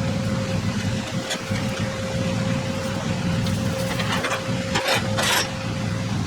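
Truck engine running steadily, with a few short rattles or clatters about four to five seconds in.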